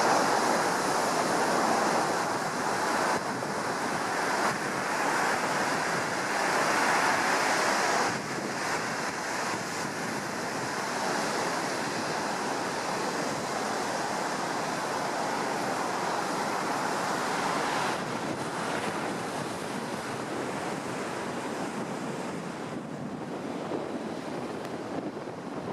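High surf raised by an approaching typhoon, breaking and washing in continuously, with wind buffeting the microphone. The surf is loudest for the first eight seconds or so, then settles lower.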